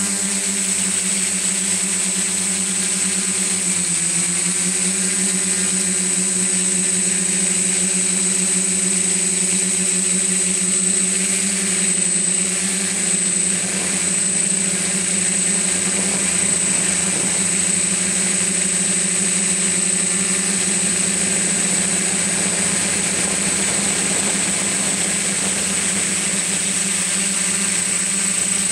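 Multirotor drone's electric motors and propellers running steadily, a droning hum with a high whine above it, heard close up through the camera it carries. The pitch dips briefly about four seconds in as the motor speed changes.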